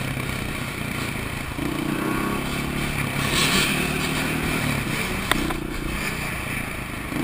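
Motorcycle engine running while riding through city traffic, heard from the rider's helmet, with one sharp click about five seconds in.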